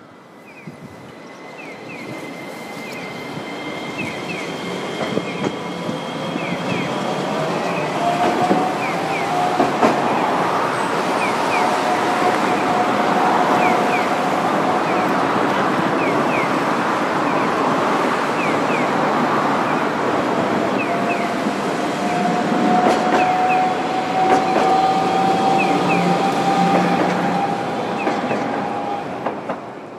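Iyotetsu 5000-series tram running past on street track. Its electric drive gives a steady whine that rises in pitch at times, over the rumble of wheels on rail. The sound swells over the first ten seconds, holds, then fades near the end.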